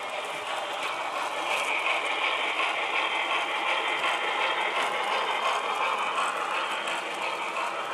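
Model trains running on layout track: a steady rattle and clatter of wheels and motors on the rails. It swells through the middle as the cars pass close by.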